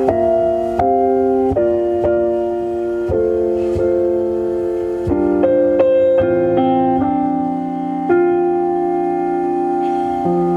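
Recorded piano music playing through a 2008 Hyundai Azera's factory car stereo: an instrumental stretch of slow piano chords that change about once a second.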